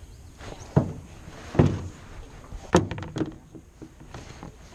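Canoe paddle knocking against the canoe: four sharp knocks over about three seconds, with the last two close together.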